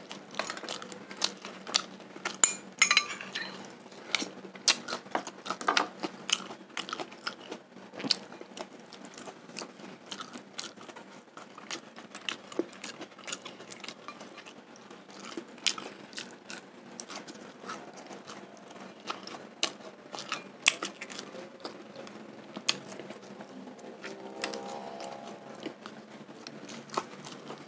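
Close-up chewing of grilled sate kere eaten by hand: wet, irregular mouth clicks, lip smacks and soft crunches.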